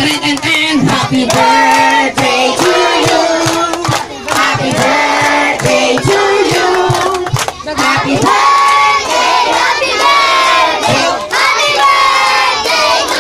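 A crowd of adults and children singing a birthday song together, with hands clapping throughout.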